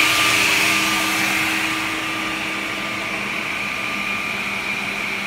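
S8 S368 automatic edge banding machine running idle with its motors on: a steady hum with a whirring hiss, slightly quieter after about two seconds.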